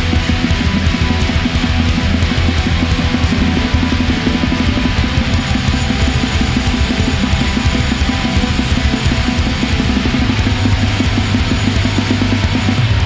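Live heavy rock band playing, with a drum kit played hard and continuously under electric guitars.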